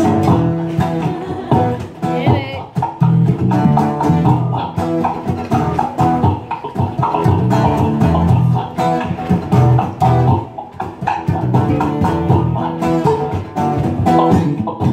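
Live jam of beatboxing into a microphone over a bass guitar groove: a steady rhythm of clicks and mouth-drum hits with repeated low bass notes.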